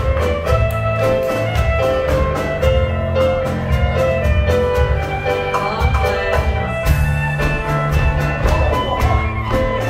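Live contra dance band playing a dance tune with a steady, quick beat and sustained melody notes.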